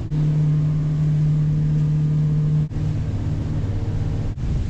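Motor boat's engine running steadily at cruising speed, a loud even drone heard inside the cabin. It breaks off for an instant twice, and its pitch shifts slightly after each break.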